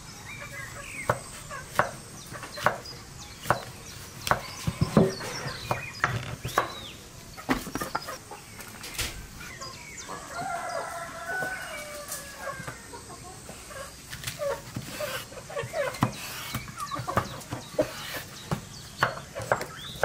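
Chef's knife chopping vegetables on a wooden cutting board in sharp, regular strokes that quicken toward the end, with chickens clucking and a rooster crowing about halfway through.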